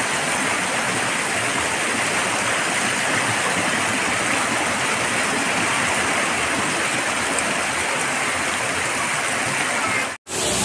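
Heavy rain pouring down onto a flooded street: a loud, steady rushing hiss of rain splashing into standing water. It cuts out for a split second about ten seconds in.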